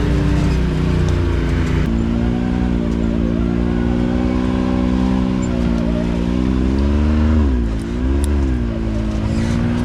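Can-Am Maverick X3 UTV's three-cylinder turbo engine running under load on a climb, its pitch stepping up about two seconds in, then briefly dropping off the throttle near the end and coming back up.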